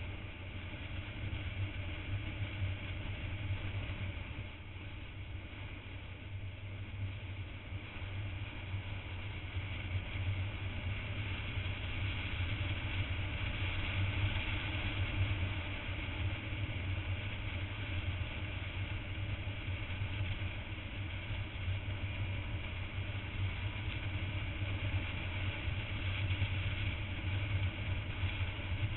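On-board sound of a motorcycle at cruising speed: engine running steadily under wind rush on the microphone, easing a little around five seconds in and building again by the middle.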